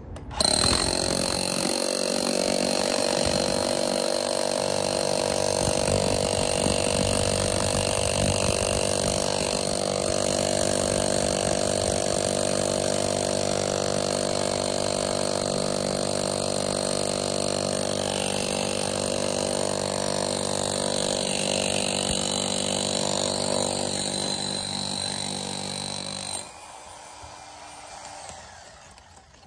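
Milwaukee spline-drive rotary hammer running in hammer-only mode, no rotation, driving a large core bit through a concrete block wall. Steady hammering that starts about half a second in and cuts off suddenly near the end.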